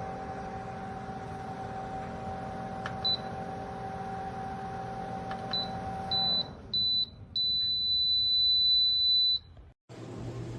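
Nuwave Bravo XL Pro air fryer oven's fan running with a steady hum that cuts off about six seconds in. Its electronic beeper sounds a few short high beeps and then one long beep of about two seconds.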